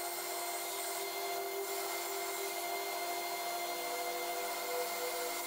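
Belt grinder running with a steel sword tang held against the belt on the flat platen, tapering the tang: a steady grinding noise over the machine's steady whine.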